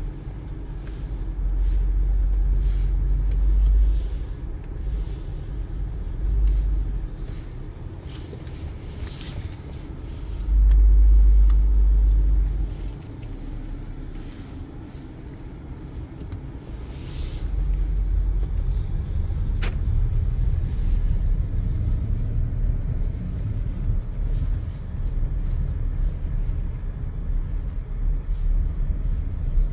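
2017 Audi Q7 3.0T with its 3.0 TFSI V6 on the move: a low rumble of engine and road noise. It swells louder twice in the first half, then holds steady and louder. One short faint tick comes about two-thirds through.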